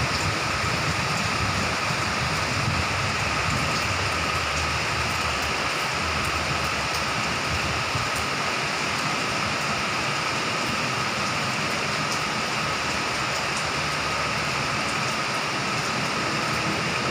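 Heavy rain falling, a steady hiss, with a faint steady high tone running through it.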